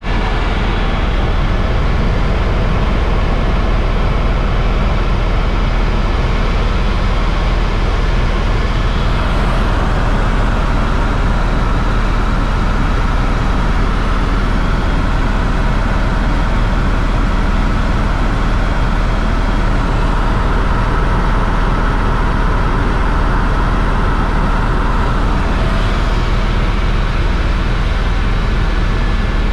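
Tour helicopter in flight, heard from inside the cabin: a loud, steady rotor and engine noise with a deep, constant rumble.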